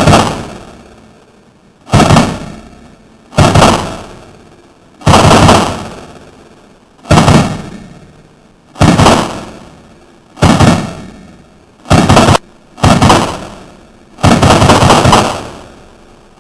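Gas-powered Mac 11 airsoft submachine gun firing on full auto in about ten short bursts, one every second and a half or so, each with a fading tail. A few bursts run longer, near the middle and near the end.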